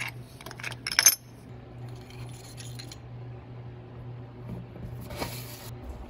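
Metal clinking of a socket wrench on the rocker arms and valvetrain parts of a Pontiac 455 V8, a few sharp clinks with the loudest about a second in, then light scraping and a short rustle near the end, over a steady low hum.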